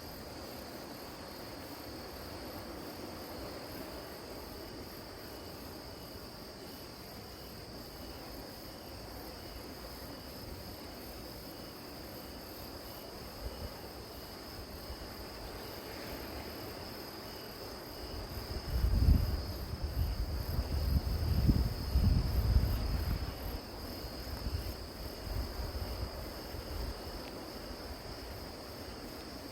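A steady, high chirring chorus of crickets and other grass insects. From about two-thirds of the way in, a stretch of low, uneven rumbling lasting several seconds rises over it, then fades.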